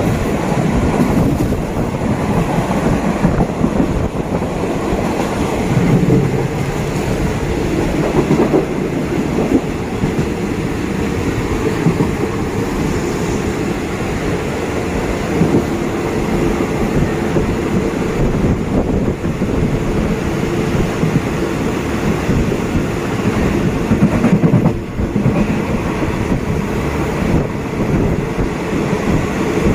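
A Thai ordinary-class passenger train running along the line, heard from inside the carriage: a steady rumble of wheels on the rails with occasional knocks.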